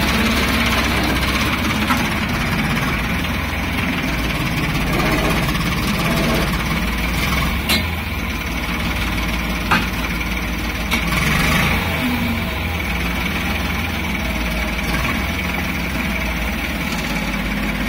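Tractor diesel engine running steadily while powering a rear-mounted hydraulic loader that scoops and lifts a bucket of soil. Three sharp knocks stand out between about eight and eleven seconds in.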